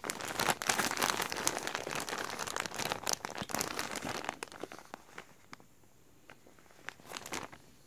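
Clear plastic wrapping around a pack of crew socks crinkling as it is handled and turned over: dense crinkling for the first four seconds or so, then a few scattered crackles and a short burst near the end.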